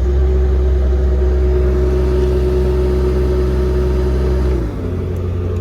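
Air compressor on a service truck's Miller power unit switched on and running under load, with a deep hum and a steady whine over the running engine. The whine and hum cut off about four and a half seconds in, and the engine keeps running.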